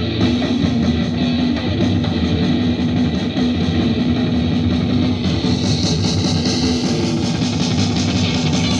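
Loud, dense guitar-driven rock music with guitar and bass; a harsh, bright layer in the highs comes in about five seconds in.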